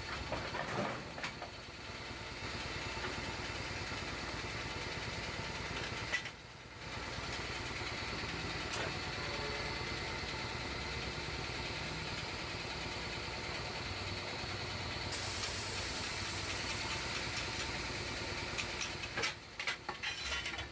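Tyre-changing machine running with a steady mechanical hum while a tyre is worked off its rim. The hum drops out briefly about six seconds in.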